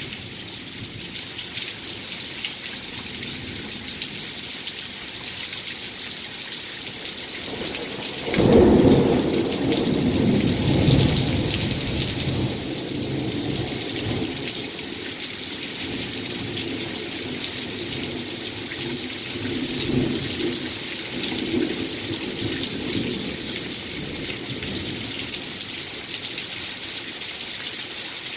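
Heavy rain pouring down steadily. A loud clap of thunder breaks about eight seconds in and rumbles on for several seconds, with fainter rolls of thunder later.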